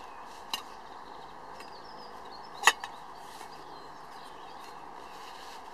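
Camping cook kit being unpacked from a waxed canvas bag: light handling noises, with a small click about half a second in and one sharp click, the loudest sound, about two and a half seconds in, over a steady outdoor background hiss.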